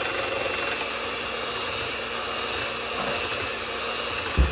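Hamilton Beach electric hand mixer running steadily, its beaters whirring in a bowl of dessert mix. A single thump near the end.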